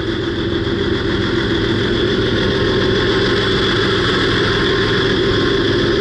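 Diesel engine of a parked semi-truck idling steadily, an even drone.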